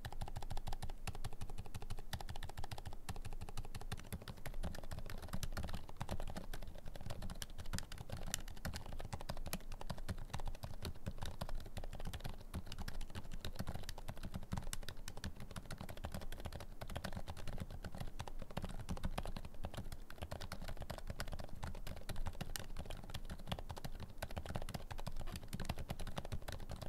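Fast, continuous typing on a Corne V4 Cherry split mechanical keyboard fitted with Kailh Deep Sea Silent Box Islet silent switches: a dense patter of very quiet, dampened keystrokes, several a second.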